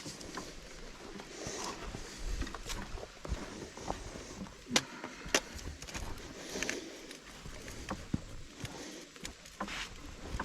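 A hiker's footsteps scraping and crunching over rock, leaf litter and brush, with irregular sharp snaps and knocks.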